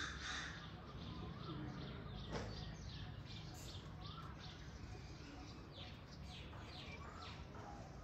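Several birds chirping and calling, with many short high chirps and a few lower whistled notes, over a steady low background rumble. A single sharp click about two and a half seconds in.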